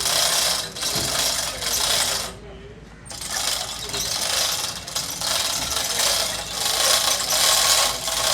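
Rhythmic rasping, ratchet-like strokes of hand-tool work on engine parts, about one stroke a second, with a brief pause about two and a half seconds in.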